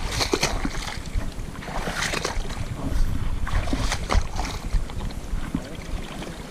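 Wind buffeting the microphone with a heavy low rumble that dies away near the end, under irregular short, sharp noises.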